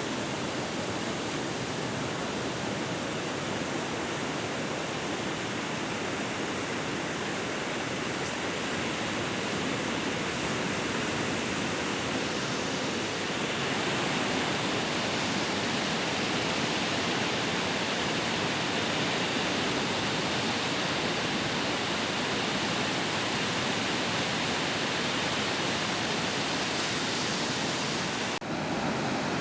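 Sea waves breaking on a beach: a steady wash of surf, a little louder from about halfway, with a brief break near the end.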